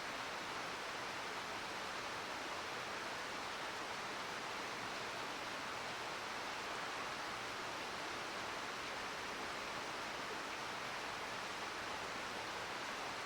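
Steady rush of a mountain river flowing over rocks, an even hiss with no breaks.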